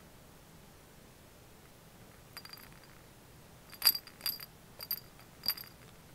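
An American Shorthair kitten wrestling and kicking a large stuffed kick toy: a few faint ticks, then four sharp, short clinks with a high ring, about half a second apart, in the second half.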